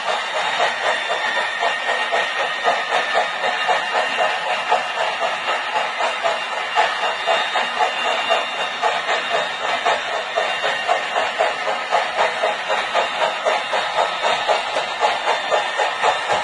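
Model freight train rolling steadily along the track, its wheels making a rapid, even clicking with a faint steady high whine.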